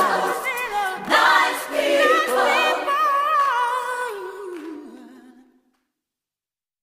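Closing song: several voices singing together with vibrato and no bass or drums, fading out to silence about five and a half seconds in.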